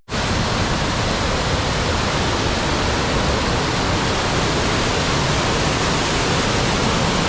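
Rushing water of a mountain river or waterfall, a loud, steady rush.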